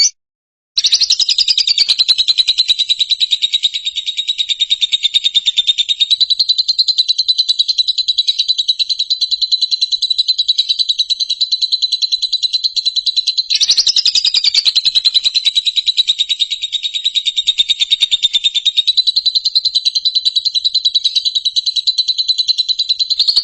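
A continuous high-pitched, very fast trill held at one steady pitch. It breaks off once about two-thirds of the way through and starts again at once.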